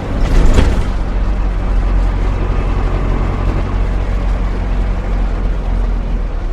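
Van engine running steadily with a low hum, with a brief loud clatter about half a second in.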